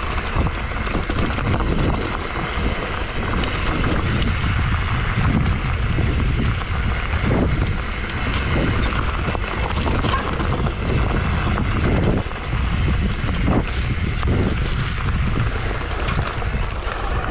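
Wind buffeting the microphone with a heavy, uneven low rumble and a few sharp knocks.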